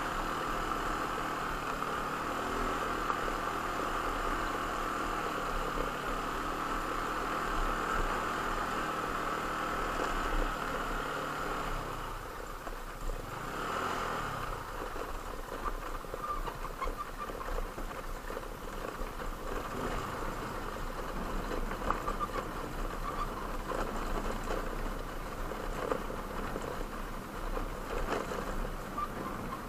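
An engine running steadily. About twelve seconds in its pitch dips and comes back up, and after that it is quieter and rougher, mixed with scattered ticks and clatter.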